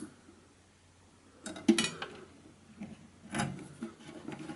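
Metal multimeter probe tips scraping and tapping against the MIG welder's rectifier diode studs and plate: a few short scrapes and clicks, the loudest about a second and a half in, another around three and a half seconds in.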